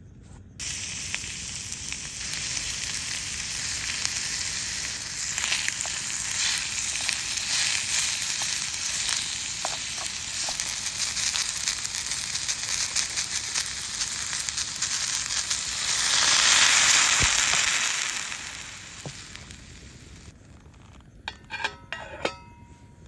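Food sizzling and crackling in a hot pan. The sizzle swells louder about sixteen seconds in, then dies down by about twenty seconds, leaving a few scattered clicks near the end.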